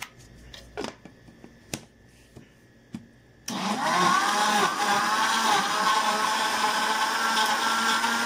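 A few light knocks, then about three and a half seconds in an electric mixer-grinder's motor switches on, its whine rising quickly to speed and then running steadily as it blends figs with milk.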